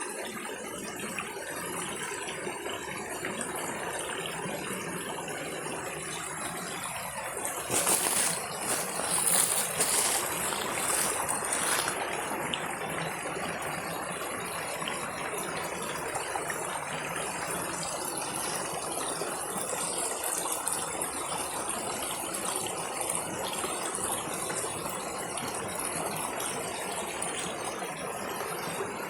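Waterfall water rushing and splashing steadily. For a few seconds about a third of the way in, a louder, hissier noise rises over it.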